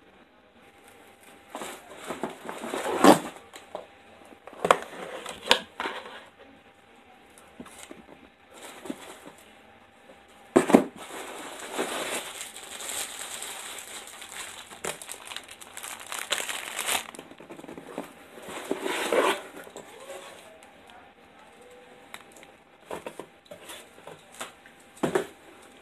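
Packaging being handled: a plastic mailer bag and cardboard crinkling and rustling in irregular bursts, with a sharp knock and then a longer stretch of continuous crinkling midway.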